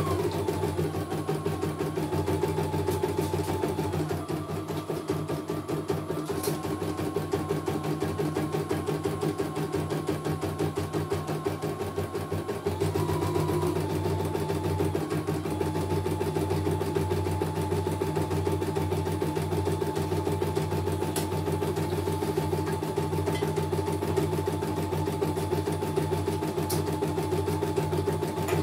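CNY computerized embroidery machine stitching a design: a fast, steady needle rattle with a higher motor whine that shifts in pitch every few seconds as the hoop moves.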